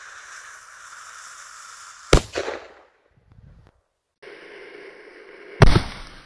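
A Dum Bum firecracker's fuse hissing steadily, then a sharp, loud bang about two seconds in. The same fuse hiss and bang then come again near the end.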